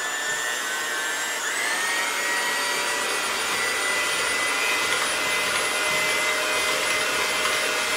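Electric hand mixer whipping egg whites in a plastic bowl: a steady motor whine from the spinning beaters, which steps up to a higher speed about one and a half seconds in.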